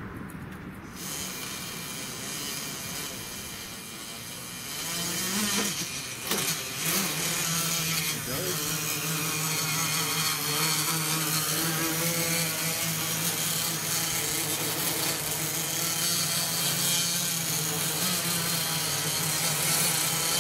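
Home-built quadcopter's electric motors and propellers spinning up. The pitch rises from about five to seven seconds in, then the motors hold a steady whine as it flies.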